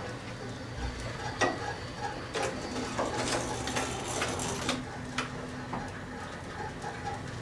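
A 1954 Otis elevator's equipment heard from the car top in the hoistway: a steady low hum with scattered clicks and knocks, and a burst of rattling about three to five seconds in.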